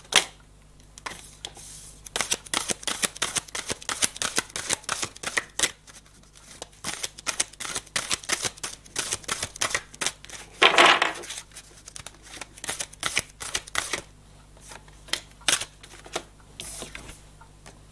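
A deck of oracle cards being shuffled by hand: a long run of quick papery clicks and flicks, busiest in the middle, with one louder rush of cards about eleven seconds in.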